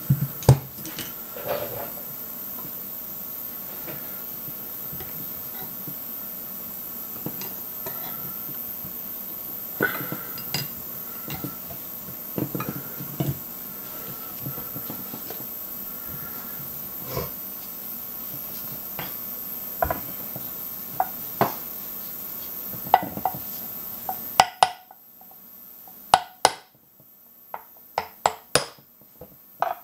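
Scattered clinks and knocks of metal engine parts being handled and set down on a workbench: a Saab B234 timing cover and its oil-pump pieces. A steady hum runs underneath and drops away abruptly about 24 seconds in, after which the clicks stand out more sharply.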